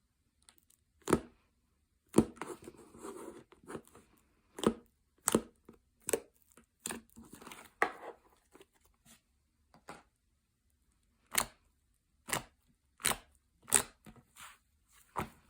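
Slime being squeezed and poked by hand: a string of sharp, sticky pops spread unevenly, with softer crackling stretches between them.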